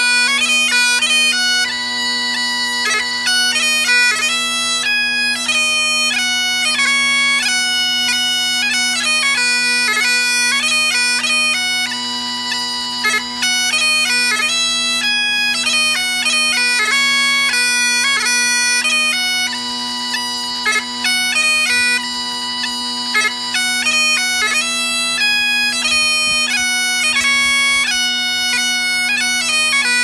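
Great Highland bagpipes playing a tune. The drones hold one steady low note under the chanter's melody, and quick grace notes flick between the melody notes.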